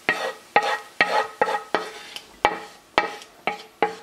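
Wooden spoon scraping and knocking against a nonstick frying pan, about nine sharp ringing clacks in quick succession, as fried diced ham is scraped out of the pan.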